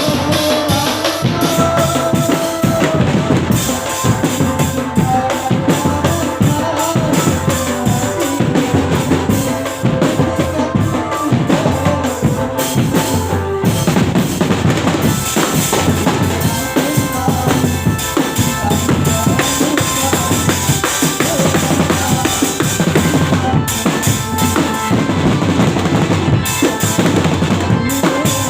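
Live band music driven by a drum kit, with bass drum and snare beating a continuous rhythm under a melody line.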